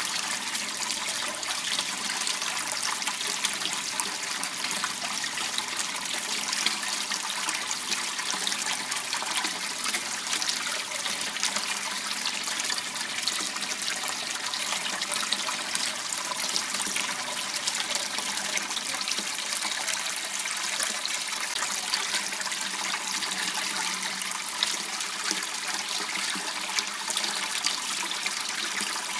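Water flowing steadily in a small waterway, an even rushing and trickling with no change in level.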